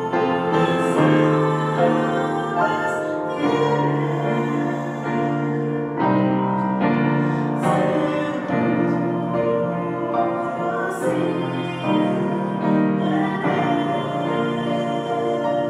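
A woman singing a slow church song with piano accompaniment, holding long notes.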